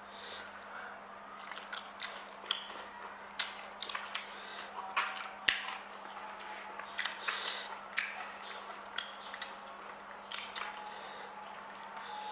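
A person eating close to the microphone: chewing and wet mouth smacks, with short irregular clicks scattered through, over a faint steady hum.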